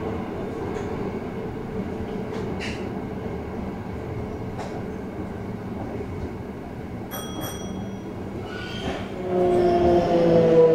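Toei 5300 series subway train heard from on board: steady running and rail noise, with a brief high electronic beep about seven seconds in. About nine seconds in, the Mitsubishi GTO-VVVF inverter gets louder and whines in several tones that fall in pitch as the train brakes to a stop at the terminus.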